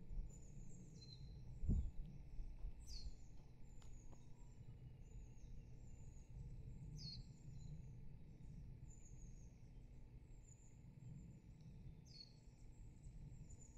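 Small birds chirping repeatedly, with a few sharper falling calls, over a steady low rumble. A single dull thump comes near the start.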